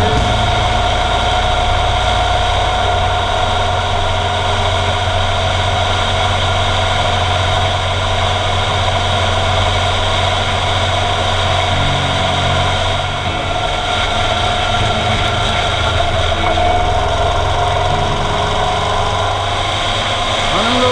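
Motorcycle engine running steadily at cruising speed, mixed with wind and road noise on a low, bike-mounted microphone.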